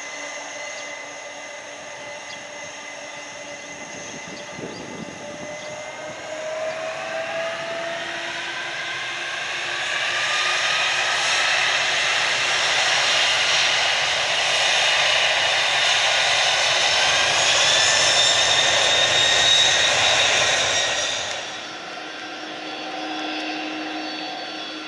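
Pratt & Whitney PW4000 engines of a Boeing 747-400 freighter spooling up for takeoff. A steady mid-range whine grows louder as several tones climb together over about ten seconds to a high whine. The sound cuts off abruptly near the end, leaving a quieter, steady jet engine hum from a taxiing airliner.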